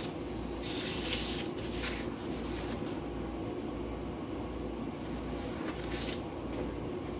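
Steady low hum of a running fan or appliance, with a few brief rustles as the paper plate and burrito halves are handled.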